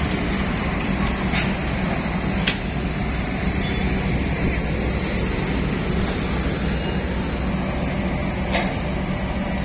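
Steady low rumble and hum of ship's machinery with a wash of noise over it, plus a faint high whine and a few light clicks.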